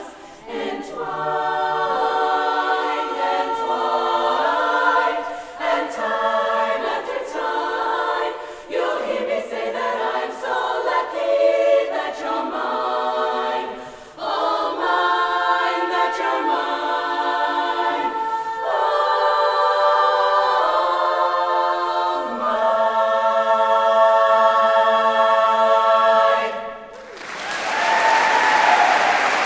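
A women's barbershop chorus singing a slow ballad a cappella in close four-part harmony, ending on a long held final chord. Audience applause breaks out near the end.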